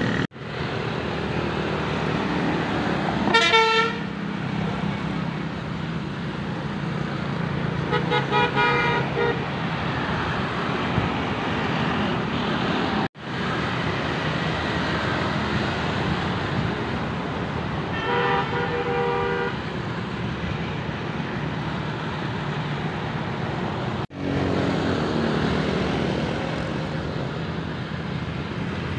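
Steady road traffic of passing motorbikes and cars, with a vehicle horn tooting three times: a few seconds in, again about eight seconds in, and around eighteen seconds in. The sound cuts out for an instant three times.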